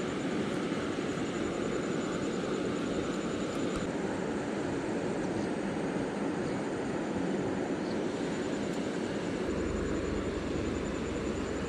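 Steady rushing outdoor noise, with a faint high, evenly pulsing tone above it. A low hum comes in near the end.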